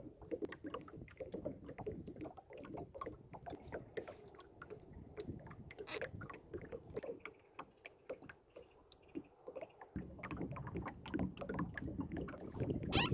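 Kayak paddling: the paddle blades dip and pull through the river water, with many small, irregular splashes and drips around the kayak. A sharper splash or knock comes near the end.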